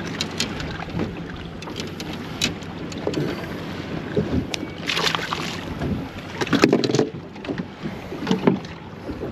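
Wind buffeting the microphone and water lapping at a small fishing boat, with scattered clicks and knocks of tackle being handled and a brief rush of noise about five seconds in. A faint low steady hum runs underneath until about six seconds in.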